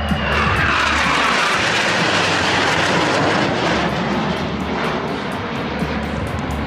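Jet noise from the Patrouille Suisse's Northrop F-5E Tiger II formation flying past: a loud, steady rush that swells at the start, drops a little in pitch and eases off after about four seconds.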